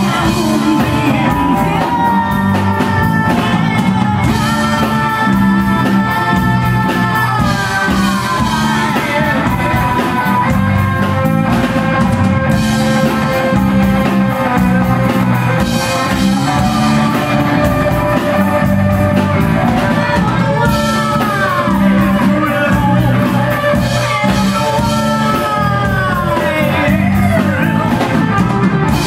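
A live rock band playing: a male singer over electric guitar, drum kit and keyboard, with a steady beat. The song has long held notes that slide downward at their ends several times.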